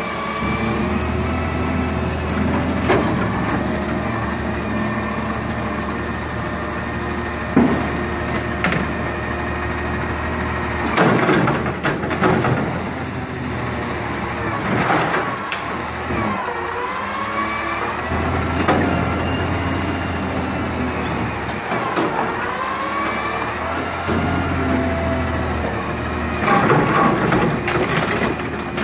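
McNeilus front-loading garbage truck lifting a container over the cab and dumping it into the hopper. The engine revs with a rising and falling hydraulic whine, and there are repeated loud bangs of the container and trash, several in quick succession near the middle and again near the end.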